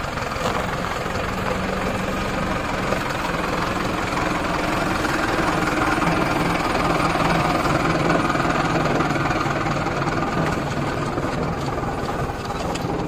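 Heavy diesel engine running steadily at low revs, getting a little louder about halfway through and then easing back.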